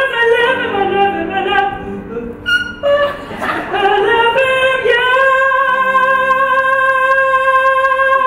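A woman singing in a big operatic style to piano: a run of sung notes, a brief break, a rising phrase, then one long high note held steady from about five seconds in.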